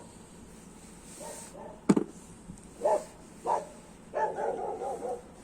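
A dog barking: two short barks followed by a longer, wavering bark, with a sharp click or knock just before them as the loudest single sound.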